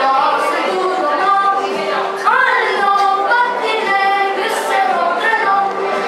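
A group of voices singing a melody of held notes; about two seconds in, one voice swoops up and back down.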